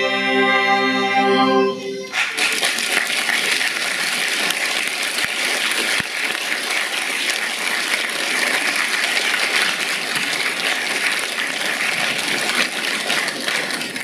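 A wind band of saxophones, brass and flutes holds a final chord that ends about two seconds in, followed by steady audience applause.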